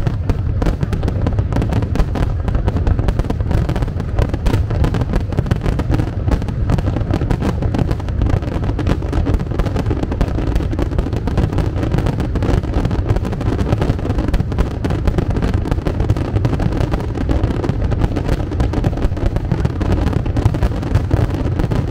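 Aerial fireworks display going off in a dense, unbroken barrage of deep bangs.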